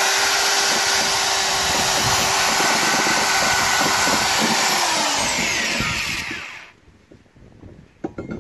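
Electric drill spinning a brass wire wheel brush against a cast iron part, rubbing a thin layer of brass onto it (hot brassing): a steady whir with wire scraping. The drill winds down and stops about five to six seconds in, followed by a few knocks as the casting is handled near the end.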